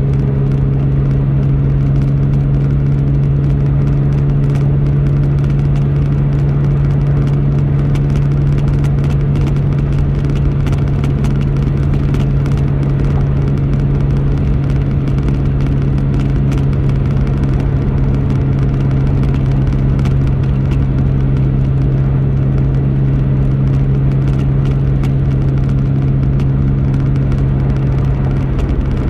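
Car travelling at a steady highway speed: a steady low drone with road and tyre noise, unchanging throughout.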